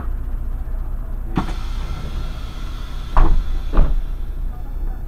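Irisbus Crossway LE city bus, heard from on board: a steady engine and road rumble. A sharp knock comes about a second and a half in, and two heavy thumps a little over half a second apart come about three seconds in.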